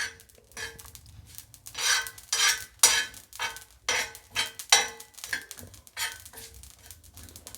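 A spoon scraping and stirring ajwain (carom seeds) dry-roasting on a hot iron tawa, in short repeated strokes about two a second.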